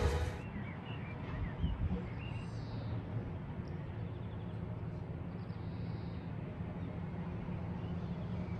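Outdoor ambience: a low steady hum with a few faint bird chirps in the first couple of seconds, after music cuts off at the very start.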